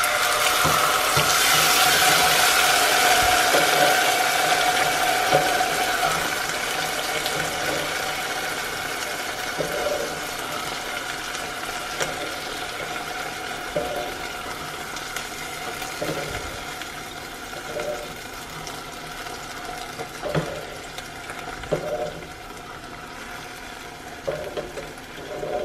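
Boiled pinto beans ladled into hot oil with toasted chile de árbol: a loud sizzle bursts up at once and slowly dies down as the oil cools under the beans. From about ten seconds in, a metal ladle knocks against the pots every couple of seconds as more beans are scooped across.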